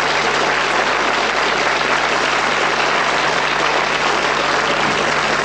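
Studio audience applauding steadily, with a faint low hum underneath.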